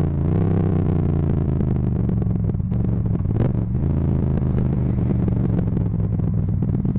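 Yamaha MT-07's parallel-twin engine running at a steady speed through a full Akrapovic titanium exhaust, loud enough that the recording is distorted.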